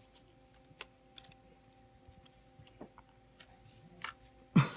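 Light, scattered clicks and taps of small hobby tools and decal paper being handled on a cutting mat, over a faint steady hum. A short, louder burst comes near the end.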